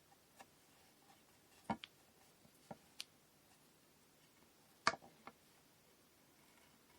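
Light clicks and knocks of kumihimo bobbin weights (tama) being handled while setting up a braid: a sharp double click about two seconds in, single ticks near the middle, and the loudest knock a little before the end.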